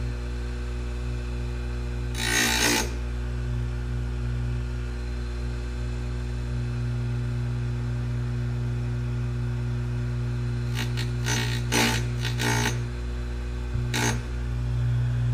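Tecomec bench chain grinder's electric motor running with a steady hum while its wheel grinds down the depth gauges on a saw chain, one link at a time. The wheel bites the steel in short grinding bursts: once about two seconds in, several quick ones about two-thirds of the way through, and one more near the end.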